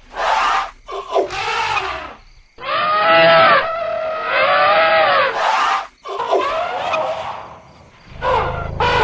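Elephants trumpeting and bellowing in a run of separate calls, the longest held for about three seconds in the middle. A low rumble comes in near the end.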